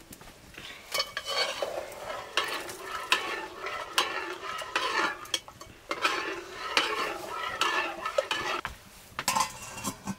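A metal ladle stirring inside a steel cooking pot, scraping against the pot in repeated strokes. Near the end, a few metallic clinks as a steel plate is set on the pot as a lid.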